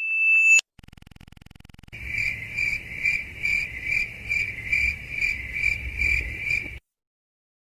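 Cricket chirping sound effect: a high, steady chirp pulsing about twice a second for about five seconds, the stock comedic 'awkward silence' cue. Just before it, a high tone swells and cuts off, followed by a second of faint rapid ticking.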